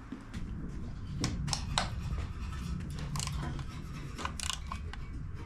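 Irregular metallic clicks and taps of a socket wrench and extension working the valve cover bolts on an 8.1-litre engine, over a low rumble.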